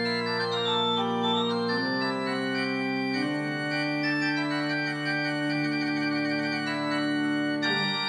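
Organ playing slow, sustained chords, the harmony changing about two seconds in, again a little after three seconds and near the end, with a stepwise falling line above the held notes at the start.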